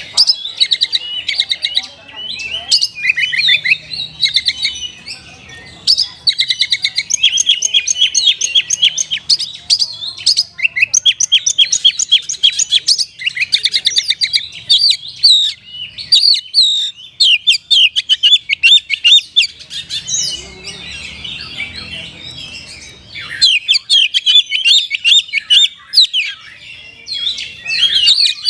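Oriental magpie-robin singing a long, fast, varied song of rapid trills and repeated sharp high notes, with phrases mimicked from other birds.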